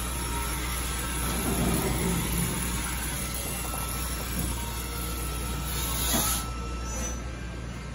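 Steady low hum and noise of running shop machinery. A short hiss of air comes about six seconds in.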